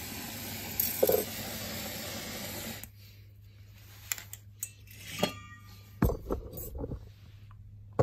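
Brazing torch flame hissing steadily, shut off abruptly about three seconds in. Then a few scattered clicks and knocks from the torch and tubing being handled, with a low thump about six seconds in.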